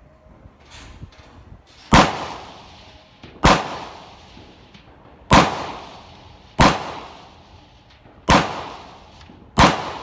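Six carbine shots fired at a slow, deliberate pace, about one and a half seconds apart, each a sharp crack followed by a short echo dying away.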